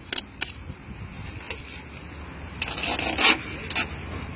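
Adhesive vinyl livery being peeled by hand off a helicopter's fuselage: short ripping sounds, two near the start and one a little later, then a longer run of tearing past the middle.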